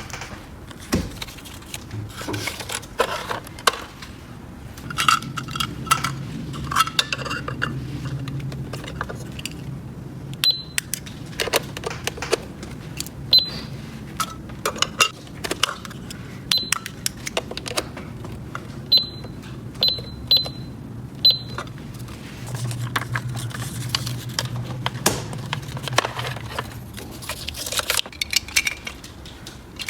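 Small plastic toy pieces clicking and clattering as they are handled and set down, with a few short high beeps in the middle stretch.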